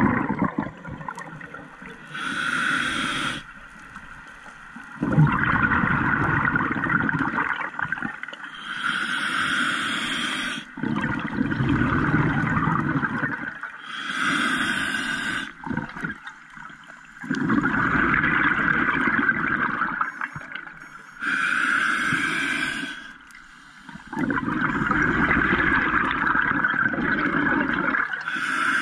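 Scuba diver breathing through a regulator underwater. Each breath is a short hissing inhale through the demand valve followed by a longer low rush of exhaled bubbles, about four full breaths, one every six to seven seconds.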